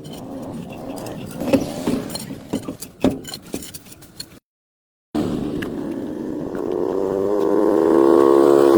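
Scattered metal knocks and taps, then after a brief cut to silence a motor running with a steady pitched hum that grows louder toward the end.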